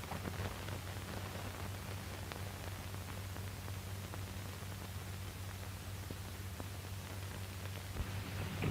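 Steady hiss and faint crackle of an old 1940s film soundtrack, with a low steady hum beneath it.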